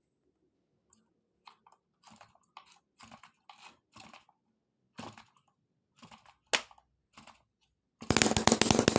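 Scattered small handling clicks and scrapes, then about eight seconds in a small two-stroke mini engine fires up abruptly and runs loud, with a rapid, even pulsing.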